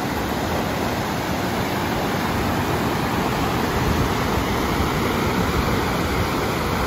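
River whitewater rushing over rocks below a small concrete dam: a steady, even rush of water.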